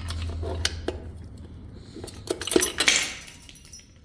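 Metal engine parts and hand tools clinking and clattering as connecting rod caps are taken off: a few scattered clicks, then a louder cluster of clanks about two and a half seconds in.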